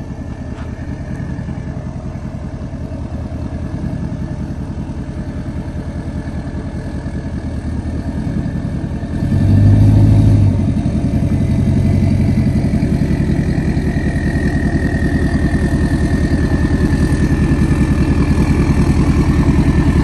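Lifted GMC pickup's Duramax diesel engine running at low speed as the truck reverses slowly. About nine seconds in it surges louder for a second or so with a burst of throttle, then settles back and grows steadily louder as the truck comes closer, a faint high whine riding over it in the second half.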